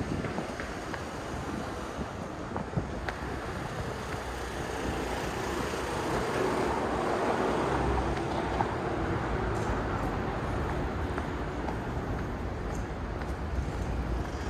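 Road traffic noise, with a vehicle passing: the sound builds to a peak about eight seconds in and then slowly fades.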